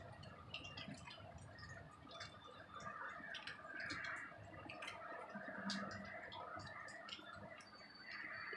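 Faint steady hum with a hiss that swells and fades, peppered with irregular small ticks and clicks.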